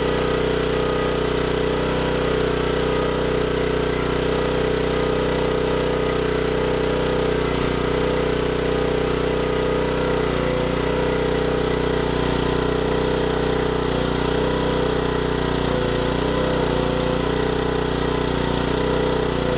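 Small portable generator's engine running steadily under a 1000-watt load.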